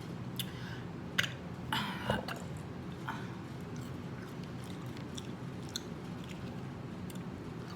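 A person chewing and biting fast food close to the microphone, with wet mouth clicks and smacks. They come thickest in the first two seconds or so and then thin out to a few soft ticks.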